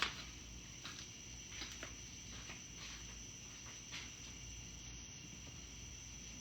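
Faint, steady, high-pitched insect chirring, with a few soft clicks and knocks scattered through.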